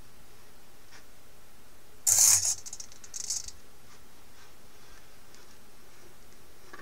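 Hobby servo motors of a pan-tilt camera bracket jerking to a new position: a short, loud whir of gears about two seconds in, then a softer, briefer one about a second later.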